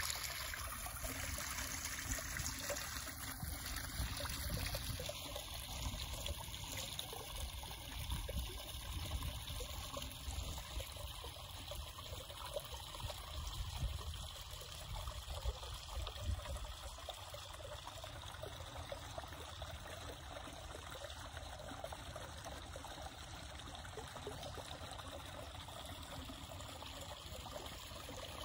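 Shallow creek water trickling steadily over rocks and through a rock-lined stream bed.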